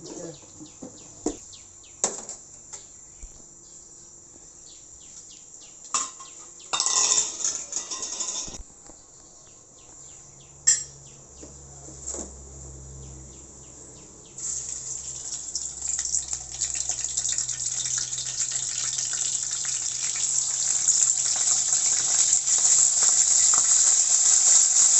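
Pieces of boiled fish frying in hot oil in a wok. The first half holds scattered clicks and a brief loud rush of noise; then, a little past halfway, a frying hiss starts and grows steadily louder.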